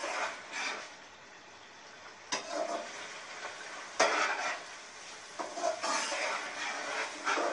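Metal spatula stirring and scraping mince and ridge gourd frying in a metal pot, with a sizzle under it. The spatula knocks sharply against the pot twice, about two and four seconds in.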